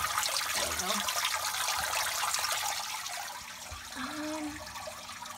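Aquarium filter water falling from a spray-bar fountain into a turtle tank: a steady splashing hiss, a little quieter in the second half.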